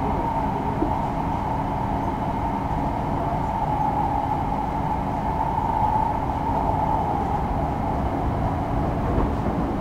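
Steady running noise heard inside a moving train carriage: an even rumble with a steady high hum held above it.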